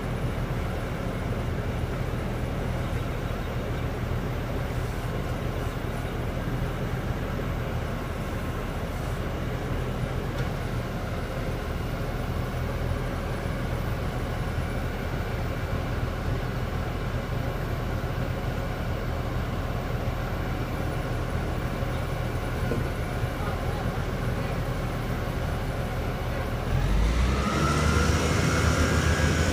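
A truck-mounted well-drilling rig's engine running steadily at a low pitch. About 27 seconds in it revs up, louder and higher in pitch.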